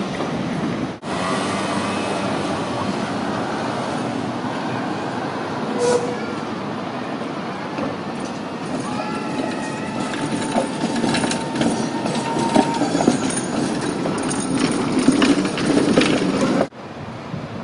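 Tatra T3 tram rolling through a street-track junction, its wheels clicking sharply over the crossings and rail joints. A steady squeal runs for a few seconds in the middle, and traffic noise sits underneath.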